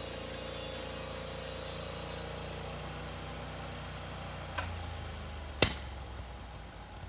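Portable bandsaw sawmill's gas engine idling steadily. A high hiss over it cuts off suddenly near three seconds in, and there is a metal click about four and a half seconds in, then a sharper, louder clank about a second later.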